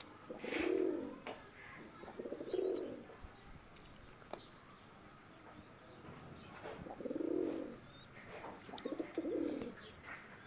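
Pigeons cooing: four low coos, a pair about two seconds apart near the start and another pair about seven and nine seconds in.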